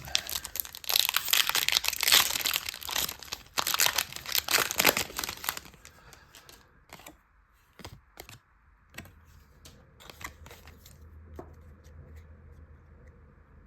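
Foil Pokémon booster pack wrapper being torn open and crinkled for about six seconds, then quieter, scattered clicks and rustles of the cards being handled.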